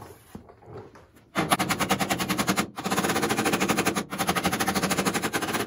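Pneumatic air hammer rattling in rapid strikes against the steel door sill of a Model A roadster body. It runs in three long bursts with two short breaks, starting about a second and a half in. The sill is being hammered into line with the body where a hammer and dolly can't be used.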